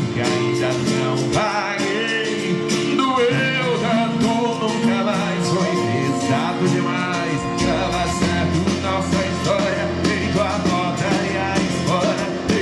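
Live sertanejo band playing a song, with guitar and a steady beat.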